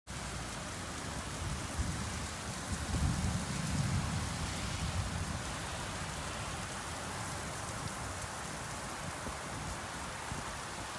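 Heavy rain pouring steadily during a supercell thunderstorm, with a low rumble of thunder swelling about three seconds in and fading by about five seconds.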